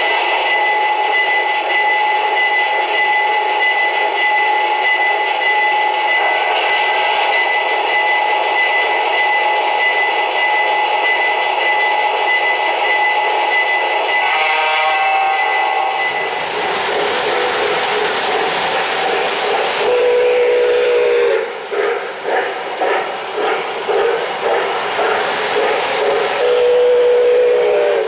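O-gauge model trains running: a steady held tone over a hiss for about sixteen seconds. Then the rolling, clattering noise of freight cars on three-rail track, with two short horn-like blasts, one about twenty seconds in and one near the end.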